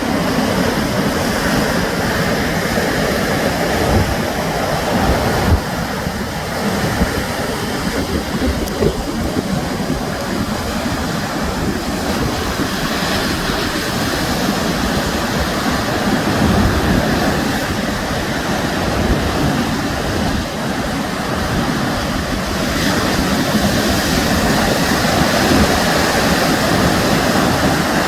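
Sea surf: waves breaking and washing on the shore in a steady rush, swelling louder now and then.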